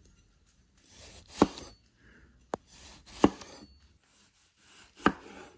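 A cleaver slicing through a large tomato on a wooden cutting board: three strokes about two seconds apart, each a short rasp through the fruit ending in a knock of the blade on the board.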